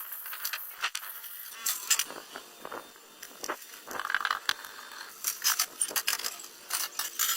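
Irregular sharp clicks, clinks and short scrapes, like small hard parts or tools being handled.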